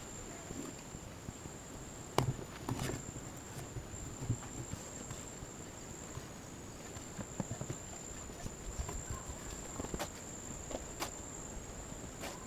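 A steady, high-pitched insect trill, with a few sharp knocks or snaps over light rustling, the loudest about two seconds in.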